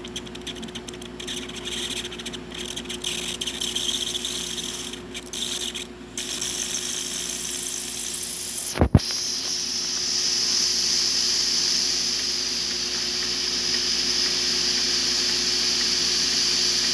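Breville Barista Express steam wand venting steam as it is tested. The hiss is uneven and sputtering at first, then after a sharp click about nine seconds in it settles into a steady, louder high hiss.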